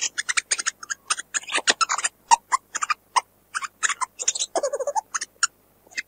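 Mongoose (meerkat) calls: a rapid, irregular series of short, sharp chirps and clicks, several a second. About four and a half seconds in, a few longer, lower-pitched calls break in.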